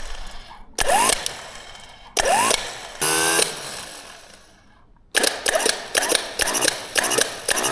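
Power tool run in short trigger pulls, each spinning up with a rising whine and then coasting down, four times. A fast run of clicks and short bursts follows from about five seconds in.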